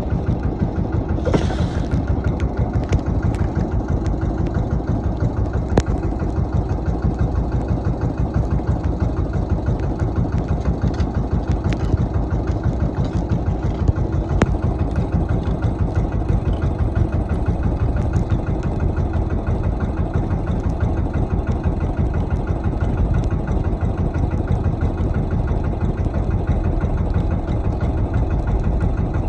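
Small fishing boat's engine running steadily with an even, fast low throb, and a few sharp clicks over it.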